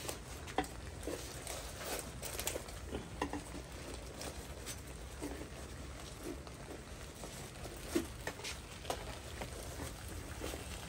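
Metal tongs turning foil-wrapped fish packets on a charcoal grill tray. Scattered soft clicks and crinkles of foil and tongs, at an irregular pace.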